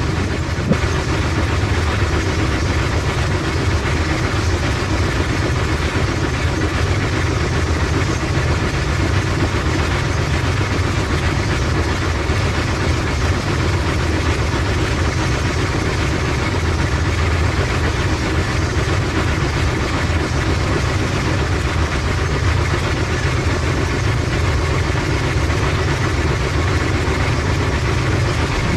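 Bowling alley pinsetter machinery running, a steady low mechanical drone, with a faint knock or two in the first second.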